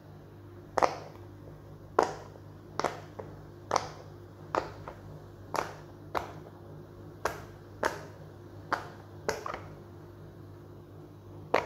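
Square rainbow silicone pop-it fidget toy (6×6 bubbles) being pressed bubble by bubble: about a dozen sharp pops, roughly one a second.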